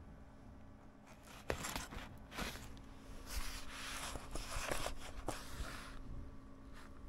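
Handling noise from a partly dismantled laptop keyboard on cardboard: a few sharp plastic clicks, starting about a second and a half in and again near five seconds, with scratchy rustling and scraping between them.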